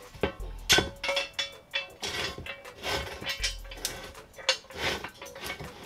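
Background music with a deep bass note about every three seconds, mixed with many sharp clinks and knocks.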